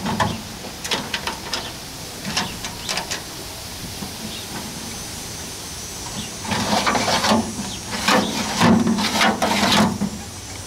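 Locked metal toolbox drawers tugged by hand, rattling and clicking against their locks, with a run of louder scraping rattles past the middle.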